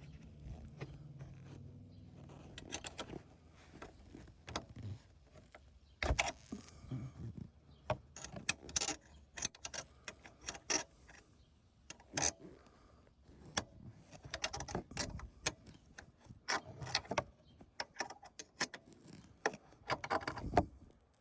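Irregular clicks, clinks and short rattles of hand tools and small metal hardware being handled while the mirror's mounting nuts and fasteners are worked.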